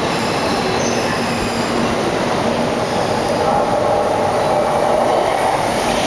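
E4 series Max double-decker Shinkansen running slowly into the platform as it arrives: a steady rumble of wheels and motors, with faint high wheel squeals in the first couple of seconds and again about three seconds in.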